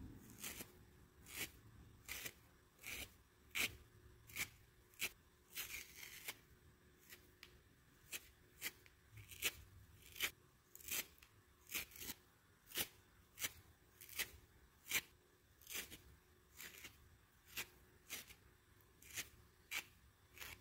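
A purple fibrous sponge being torn apart by hand, its fibres giving short, crisp rips, about one and a half a second, one after another.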